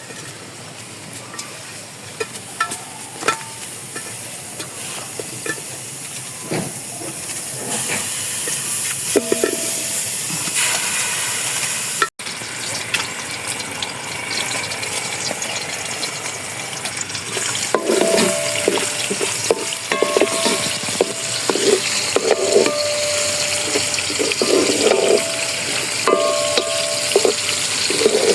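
Food frying in a pot with a steady sizzle while it is stirred. From about two-thirds of the way in, a utensil repeatedly knocks and scrapes against the pot with a short metallic ring.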